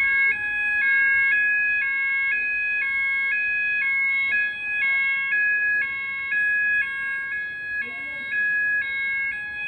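Fire alarm sounders going off continuously: a two-tone warble alternating about every third of a second over a steady high tone.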